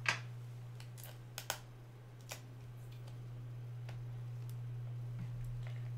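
A small tool set down with a sharp click on a glass desktop, followed by a few lighter clicks and taps as a cardboard product box is handled and its top flap pried open.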